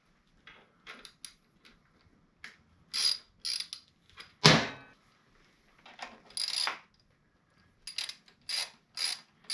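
Socket ratchet clicking as it cranks in a motorcycle's rear-wheel chain adjuster bolt, taking up chain slack. The strokes come in short irregular runs at first, with one sharp knock about halfway, then settle into a steady rhythm of about two strokes a second near the end.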